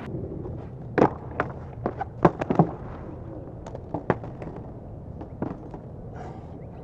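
Skateboard clattering on asphalt as it settles after a bail: a scatter of sharp wooden knocks over the first few seconds, then a couple more, over a low outdoor background.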